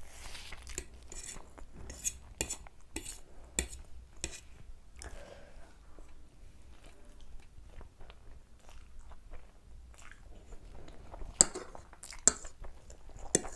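Close-up eating sounds of Maggi instant noodles: wet chewing and mouth clicks, with a fork scraping and clinking on the plate. The loudest sharp clinks come near the end.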